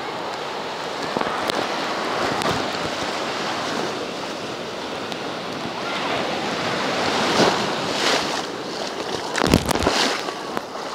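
Sea surf breaking and washing in the shallows, a steady rushing that swells and eases, with wind on the microphone. A few sharp thumps near the end are the loudest sounds.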